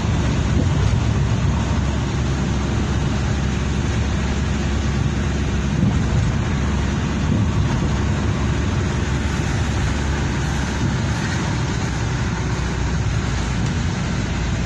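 Car driving at steady speed, heard from inside its cabin: a low, even rumble of engine and tyres on the road surface.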